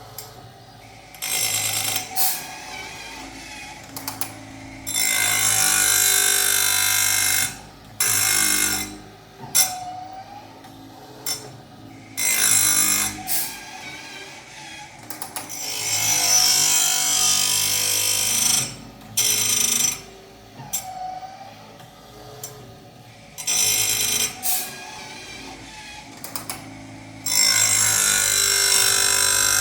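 Automatic chainsaw-chain sharpening machine at work: the grinding wheel grinds the teeth in repeated loud, hissing bursts of one to three seconds. A motor hums steadily in the quieter gaps between them.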